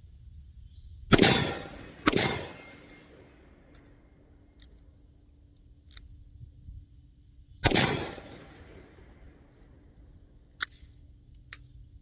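Three 9mm pistol shots from a Glock 19 in a CAA MCK conversion kit: two about a second apart, then a third after a pause of several seconds, each ringing out afterwards. These are rounds that had earlier malfunctioned, re-tried and now firing. A couple of faint clicks follow near the end.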